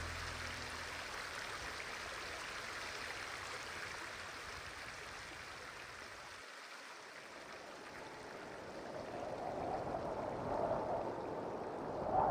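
Shallow river water running over rocks, a steady rushing. A wavering sound grows louder beneath it in the last few seconds.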